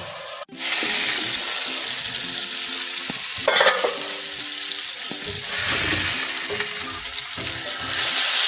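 Masala-coated fish fillet sizzling steadily in hot oil on an iron tawa, with a brief louder flare of sizzling about three and a half seconds in.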